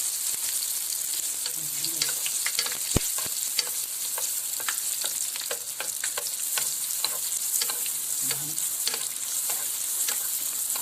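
Sfenj dough frying in a pan of hot oil: a steady loud sizzle with many small crackles and pops, and one sharper pop about three seconds in.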